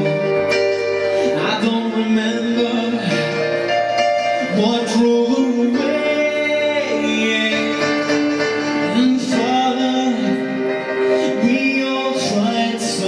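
A man singing long held notes that slide between pitches, accompanied by chords on an electronic keyboard.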